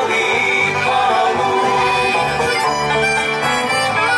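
Hula dance music with plucked strings and a steady beat, played over stage loudspeakers.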